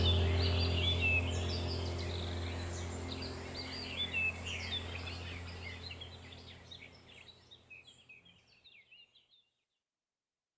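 Songbirds chirping over a low steady hum, both fading out together to near silence about eight seconds in.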